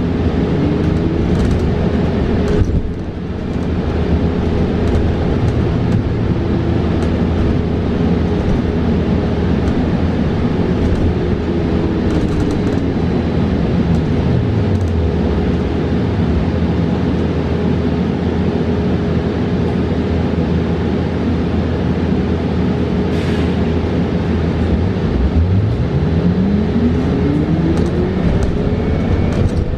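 Ride inside a 2022 New Flyer XE40 battery-electric bus: steady road and tyre noise, with the electric drive motor's whine falling in pitch as the bus slows about halfway through, then rising again as it speeds up near the end. A steady higher hum runs underneath most of the time.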